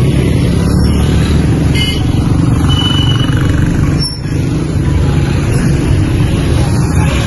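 Steady low rumble of a motor vehicle engine running close by, with a short high tone about three seconds in.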